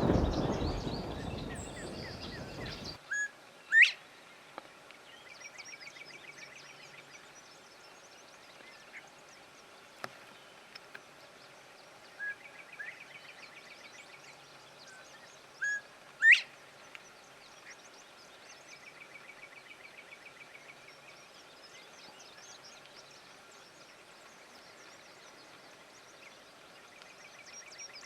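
Northern bobwhite whistling its "bob-WHITE" song twice, about twelve seconds apart: a short note, then a loud whistle that sweeps sharply upward. Other birds trill faintly in the background, and a rush of noise fades out over the first three seconds.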